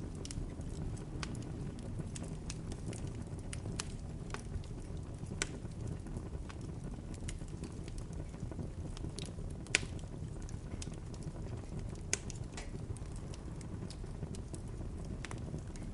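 Bonfire burning with a steady low rumble and irregular sharp crackles and pops from the burning wood, the loudest pop about ten seconds in.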